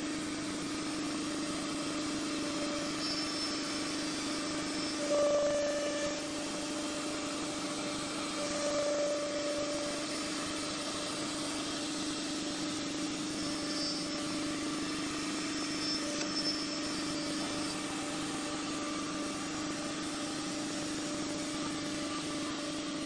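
Automatic tool-change CNC woodworking router running, its spindle and dust extraction giving a steady hum with a noisy rush over it. The hum briefly swells louder about five seconds in and again near nine seconds.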